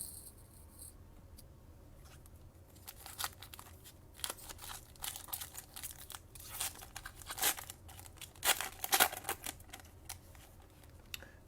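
Foil wrapper of a trading card pack being torn open and crinkled: a run of sharp crackles, busiest and loudest toward the end.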